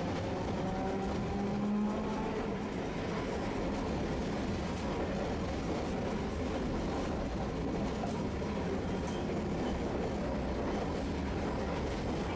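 Tosaden streetcar running along street track, heard from inside the car: a steady rumble of wheels and running gear. A whining tone fades out about three seconds in, and light ticks come now and then.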